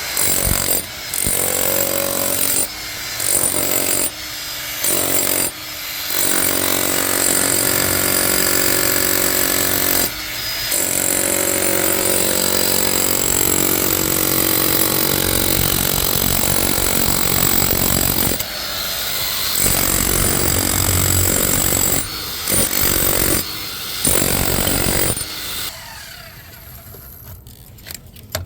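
Electric power tool running in a series of long bursts, its motor pitch wavering, with short stops between them and a quieter stretch near the end.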